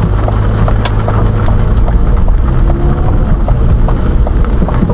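A vehicle driving in light rain: a steady, loud low rumble of engine and road noise, with faint regular ticking about two to three times a second.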